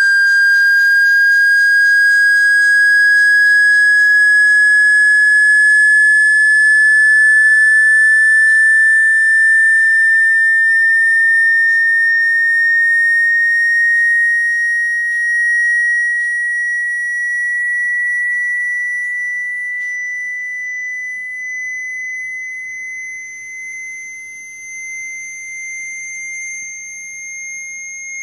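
A single high-pitched electronic sine tone, gliding slowly and steadily upward in pitch. It grows somewhat quieter and wavers in loudness in the second half. This is a speaker-cleaning sweep tone, played to vibrate water or dust out of a phone speaker.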